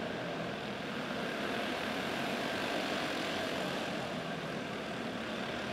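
A pack of racing karts with single-cylinder four-stroke clone engines running together at race speed, heard as a steady drone.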